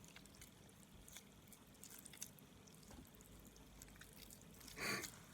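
Faint sticky squelches and small clicks of glitter-glue slime being mixed and squeezed by hand, the slime over-activated with too much borax; one louder squelch just before the end.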